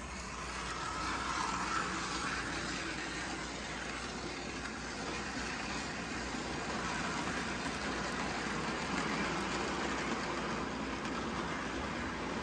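Postwar Lionel toy train running on the track: the electric motor of the powered Erie Alco FA diesel unit whirring and the metal wheels rumbling along the rails. The sound grows louder over the first second or two, then holds steady.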